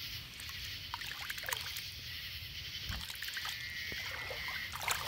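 Water sloshing and small splashes with scattered light clicks, as a big flathead catfish is held in the lake by hand and eased back into the water.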